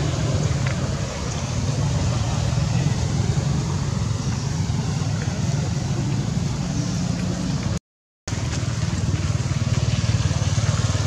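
Steady low rumbling background noise, cutting out completely for about half a second roughly eight seconds in.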